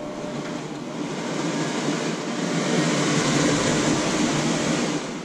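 Stainless-steel under-cabinet range hood exhaust fan running with a loud, even rush of air, growing louder over the first few seconds as the fan speed is stepped up, then switched off near the end.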